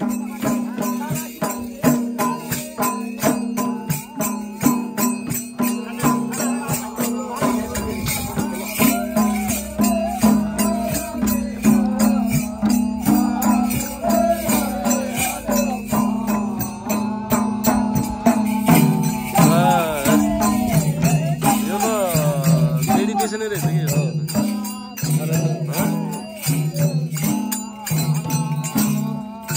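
Folk music from several madal hand drums beating a quick, steady rhythm, with voices singing over them.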